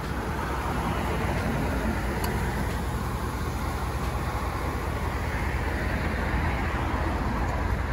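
A pickup truck's engine idling steadily, a low, even rumble.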